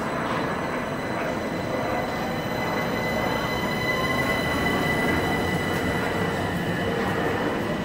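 Southern Class 377 Electrostar electric multiple unit pulling out past the platform: rumbling wheels and a steady high whine from its traction motors.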